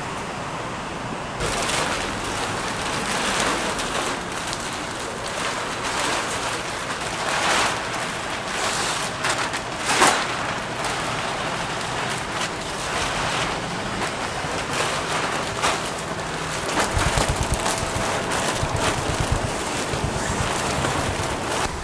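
Fish cakes deep-frying in hot oil: a steady sizzle with scattered sharp crackles and pops. A low, fast rattle joins in for a couple of seconds near the end.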